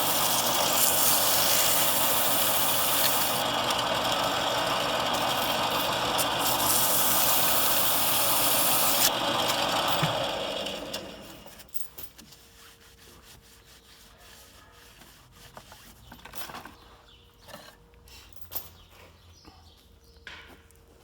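Metal lathe running while sandpaper is held against a spinning Kent Moore injector tube reamer, making a steady, loud rasping hiss over the lathe's motor. About ten seconds in, the lathe is switched off and the sound dies away within a second, leaving a faint steady hum and a few light clicks of handling.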